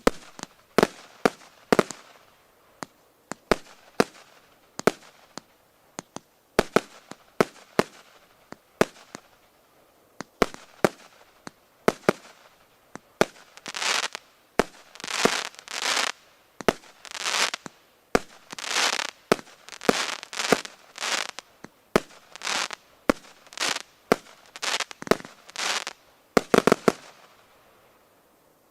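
Feeria 'Sonic' 36-shot consumer firework cake firing: a long series of sharp shots, about one a second or faster. About halfway through come longer hissing shots, and there is a quick final flurry of shots near the end.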